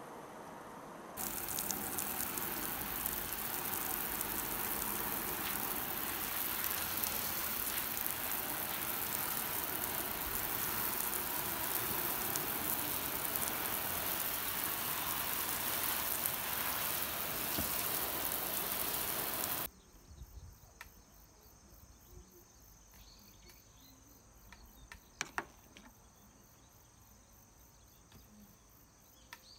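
Water spraying from a garden hose nozzle onto a car's body panel, a steady hiss that cuts off suddenly about two-thirds of the way through. After it, faint insects chirping and a few light taps.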